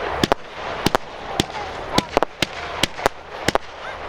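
Fireworks display going off: sharp bangs at irregular intervals, about three a second, over a continuous crackling hiss.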